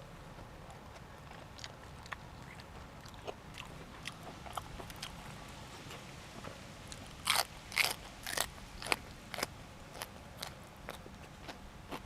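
A person biting and chewing crunchy raw vegetables. Soft crunches come first, then three loud crunching bites a little past the middle, then steady chewing crunches about twice a second.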